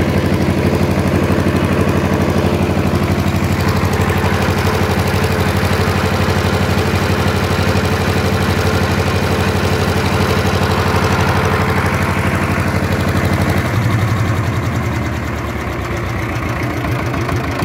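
Old tractor's engine running steadily. About three-quarters of the way through its pitch drops and it settles into a lower, slightly quieter beat.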